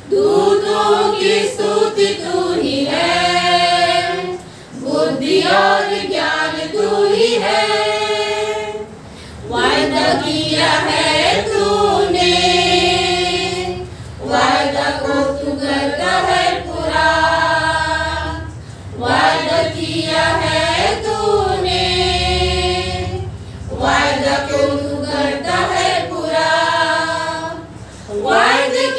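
A group of women singing a Hindi Christian hymn together from songbooks, without instruments, in sung phrases of a few seconds each with short breath pauses between them.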